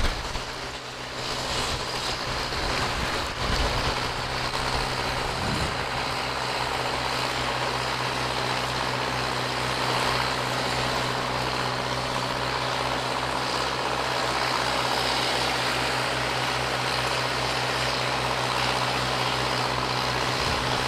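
An engine running steadily with a low, even throb, under a constant rushing noise.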